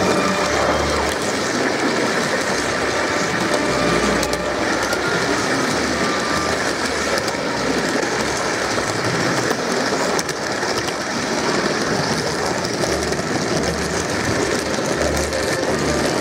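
Gauge 1 model train running on garden track, heard from a camera riding on the train: a steady rolling noise of the wheels on the rails.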